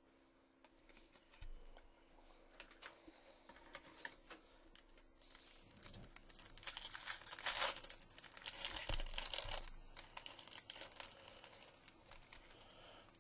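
Foil wrapper of a trading-card pack being torn open and crinkled, with many small crackles, loudest in the middle stretch.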